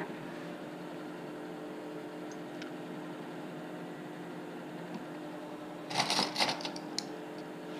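Metal binder clips rattling and clinking in a plastic tub as a handful is grabbed, a short clattering burst about six seconds in. A steady low hum runs underneath throughout.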